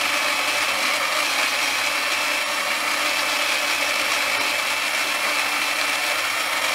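Built-in coffee grinder of a Philips EP5443 LatteGo espresso machine grinding beans at the start of a cappuccino cycle: a steady motor whine under rough grinding noise.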